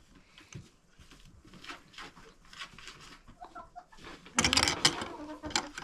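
Backyard chickens clucking softly. About four and a half seconds in comes a loud, brief clatter of knocks and rattles.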